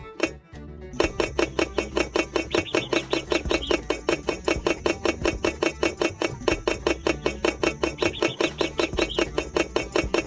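Upbeat background music with a fast, even beat, starting about a second in, after a couple of light clinks at the very start.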